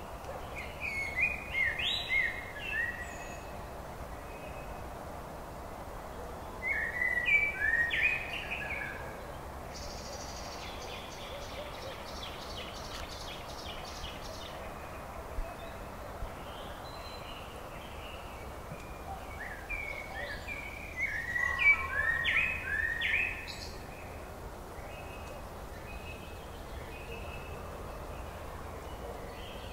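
Songbirds singing over a steady background hiss. Short bursts of chirping phrases come about a second in, again around seven seconds, and in a longer bout past twenty seconds. Between them, from about ten to fifteen seconds, there is a fast, high, evenly repeated trill.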